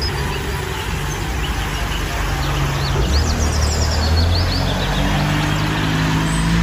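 Single-decker city bus driving past on a wet road: its engine running with a low hum that grows louder about three seconds in, over steady road noise. Small birds chirp above it.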